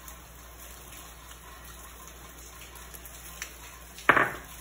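Mostly quiet kitchen room tone with faint handling. About four seconds in comes one short, loud clatter of kitchenware, as the bowl and spatula are handled while ground peanuts are added to the condensed milk.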